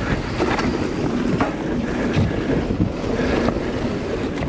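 Wind buffeting the microphone while a mountain bike is ridden, with scattered clacks and rattles from the bike, the clacking the rider puts down to a low-engagement rear hub.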